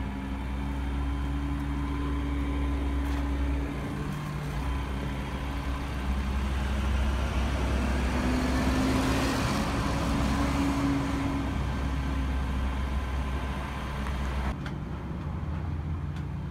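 Flatbed tow truck's engine running steadily to drive the winch as the car is pulled up the ramp. A louder swell of noise rises and fades around the middle, and the low hum stops short near the end.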